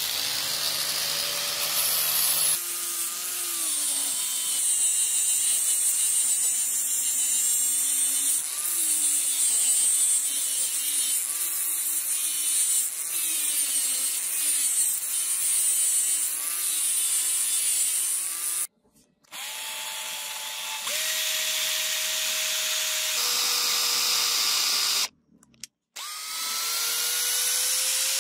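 Angle grinder with a sanding disc running against a rusted steel sword blade, sanding off the rust, its motor pitch wavering as the disc is pressed and eased. Near the end the sound cuts off and restarts several times, and a power drill spins up with a rising whine as it bores into a wooden block.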